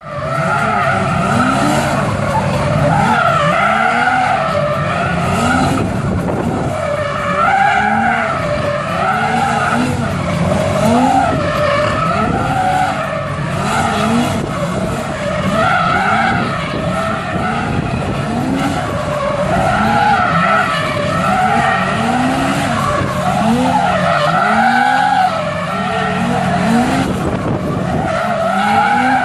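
Stunt car's tyres squealing continuously in a long skid, the squeal wavering up and down in pitch, while the engine is revved again and again.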